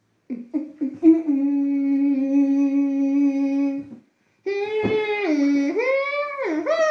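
A person humming: a few short notes, then one long steady held note, then after a short break a tune that slides up and down.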